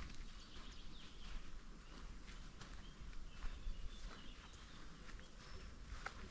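Footsteps on a forest path at a steady walking pace, about two steps a second, with faint birdsong in the background.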